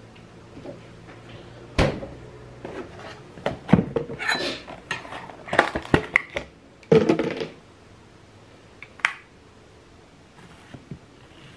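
Plastic food tubs and their lids being handled on a countertop, with a metal spoon clinking. A sharp knock about two seconds in is followed by a busy stretch of knocks and plastic rustling, then a single click near the end.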